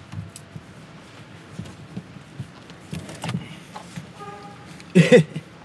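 Hands rummaging under a car seat: faint rustling with small clicks and knocks, then a short loud vocal exclamation about five seconds in.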